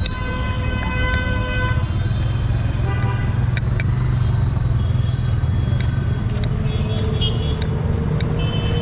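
Street traffic with a steady engine rumble and vehicle horns: one long horn blast in the first two seconds, and shorter high-pitched toots near the end. A few sharp knife taps on a wooden cutting board fall in between.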